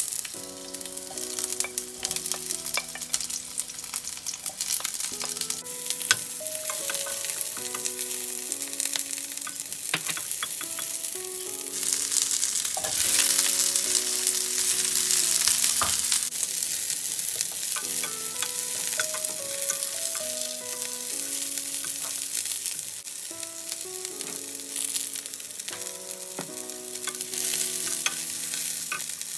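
Onion, garlic and ginger sizzling in hot oil in a frying pan, with a wooden spatula stirring and scraping and clicking against the pan; the sizzling grows louder about halfway through as chopped bell peppers are tipped in. Soft background music with a simple melody plays underneath.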